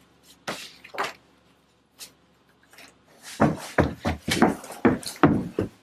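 A few soft paper rustles, then hurried footsteps thudding down carpeted stairs: about seven quick steps in under three seconds, starting about halfway through.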